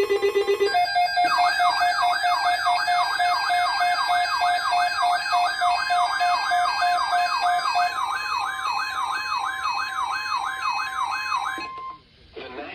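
Electronic emergency alert tone for a weather-radio warning: a siren-like warble sweeping up and down about twice a second, with a steady lower tone under it for the first several seconds. It follows a brief pulsed buzzing tone at the start and cuts off suddenly about a second before the end.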